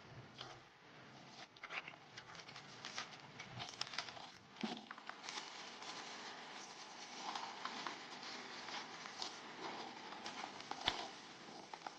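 Rustling and crinkling with many scattered small clicks and cracks, as of materials being handled and worked by hand; one sharper knock near the end.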